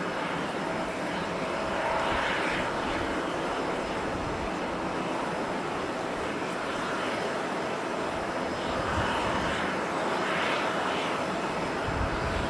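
Jet engines of an ANA Boeing 787-8 Dreamliner, heard as a steady rushing noise that swells about two seconds in and again near the end.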